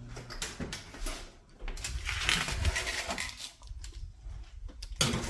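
Clatter and rustle of a baking pan of chicken being handled and put into an oven, ending with a sharp knock about five seconds in.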